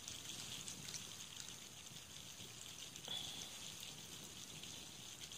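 Small wood campfire crackling and hissing faintly with scattered small snaps, with a brief high whistle about three seconds in.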